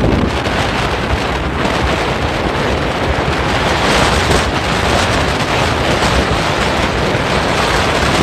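Wind rushing over the microphone of a moving open motorboat, with the boat's engine and water running past the hull underneath as one steady, loud noise.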